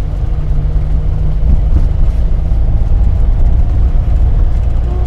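1984 Daihatsu Hijet 1000 on the move, heard from inside its cab: a steady, loud low rumble of engine and road noise.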